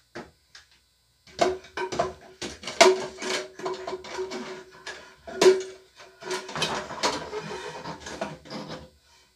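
A plastic toilet fill valve and its refill hose knocking, clicking and scraping against the inside of a porcelain toilet tank as they are fitted in place, with a few louder clunks that ring briefly.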